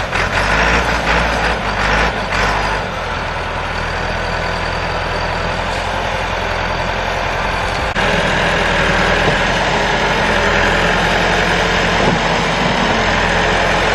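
Diesel tractor engine running steadily. It gets louder about eight seconds in.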